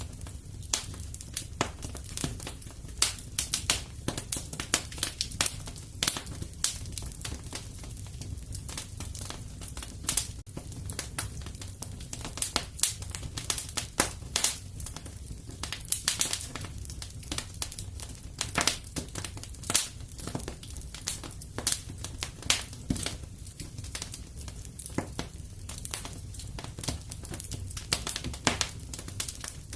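Wood fire in a fireplace crackling, with irregular sharp pops and snaps several times a second over a steady low rumble.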